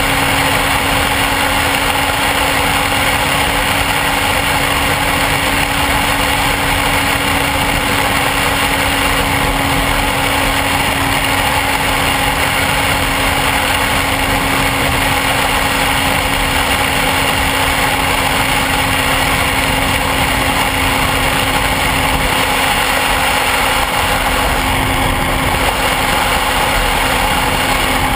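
Motorcycle riding at a steady cruising speed: a constant engine drone under steady wind rush on the camera's microphone.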